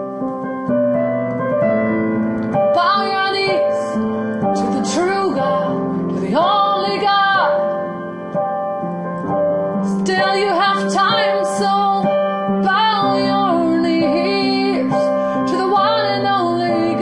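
A woman singing over piano chords, her voice gliding between notes in several phrases, with the piano sustaining underneath.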